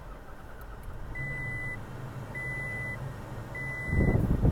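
A 2018 Toyota Tacoma pickup's engine started with the push button and running, while the dashboard sounds a high warning beep about every second and a quarter. Just before the end, the engine sound rises sharply and gets much louder.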